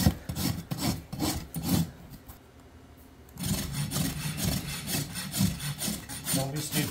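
Farrier's hoof rasp scraping across a horse's hoof wall in quick back-and-forth strokes, about four a second. The strokes stop for a little over a second about two seconds in, then start again.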